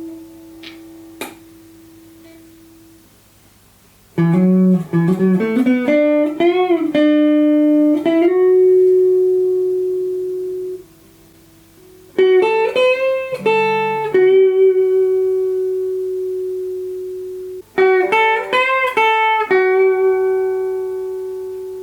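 Replica Gibson Les Paul electric guitar on its bridge pickup through a Vox amp, playing three short lead phrases of quick notes with string bends. Each phrase ends on a long held note that rings and slowly fades, over a faint steady amp hum. The first few seconds are quiet apart from a couple of light clicks.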